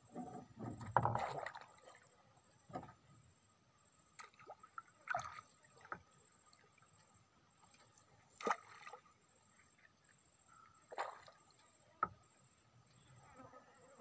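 Scattered knocks and thumps on a wooden boat hull with light water sloshing; the loudest, busiest cluster comes about a second in, then single sharp knocks every few seconds.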